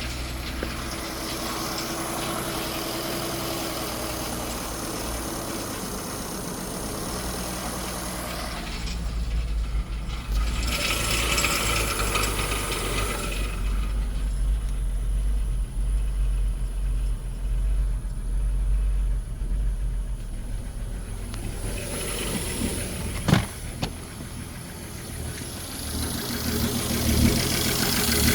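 Ford 3.5 EcoBoost twin-turbo V6 running with a mechanical knocking, the sign of a worn or failing connecting-rod bearing (rod knock). One sharp knock stands out a little past two-thirds of the way in.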